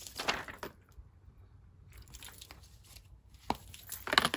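Cardboard eyeshadow palette packaging being handled: a brief scuffing rustle at the start, a single click about three and a half seconds in, and another rustle near the end.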